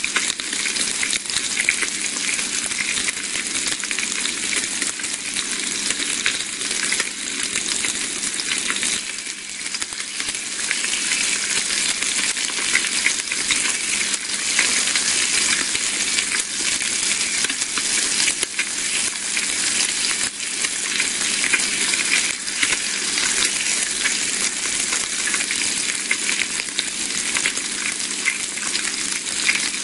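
Bacon frying: a steady dense sizzle packed with small crackling pops, easing slightly for a moment about nine seconds in.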